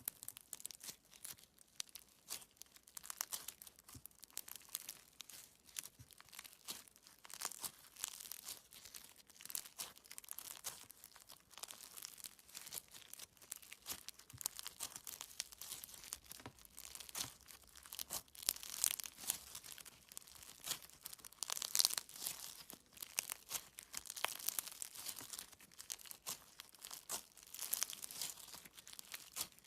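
Slime being squeezed and worked by hand, giving a dense, continuous crackle of small sticky pops and clicks.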